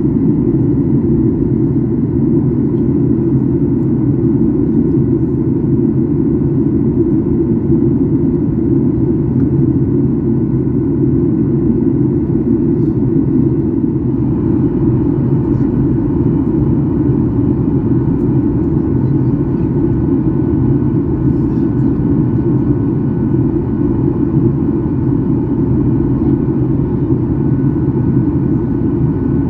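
Steady cabin noise inside a Boeing 737-8200 airliner in flight: a low rumble of airflow and the CFM LEAP-1B engines, with faint steady whining tones above it. The tone of the noise shifts slightly about halfway through.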